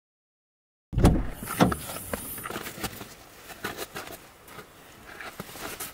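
Silence for about a second, then a sudden loud thump and another soon after, followed by scattered knocks and rustling: a person moving about close by at an open car hatchback.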